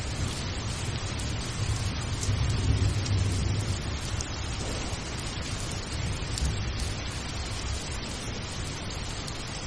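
Steady rain hiss with a low rumble underneath that swells a little about two to three seconds in.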